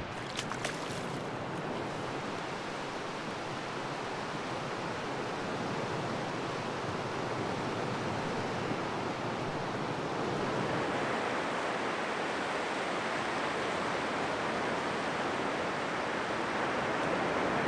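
Ocean surf breaking and washing onto a beach, a steady rushing noise that grows slightly louder partway through.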